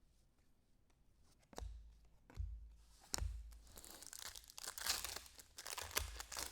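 A few knocks as a card pack is handled, then a foil trading-card pack wrapper being torn open and crinkled.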